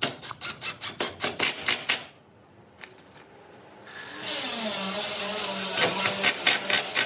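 Quick, even strokes of a tool working wood, about six a second, for two seconds. After a short pause a power tool starts and runs steadily, with a series of sharp strokes near the end.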